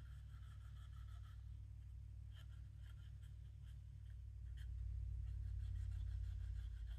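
Faint scratching of a cotton swab scrubbing a moisture-damaged circuit board, with a couple of light clicks, over a steady low hum that swells a little about five seconds in.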